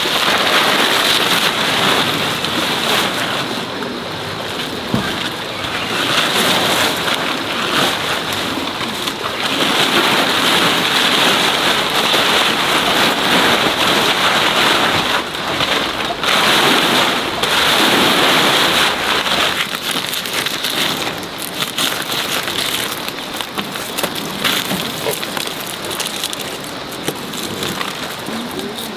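Woven plastic sacks rustling and crinkling loudly as they are handled and hung up, in surges that come and go.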